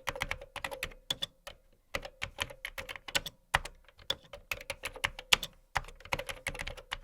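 Typing on a computer keyboard: quick runs of key clicks, several a second, broken by a few short pauses.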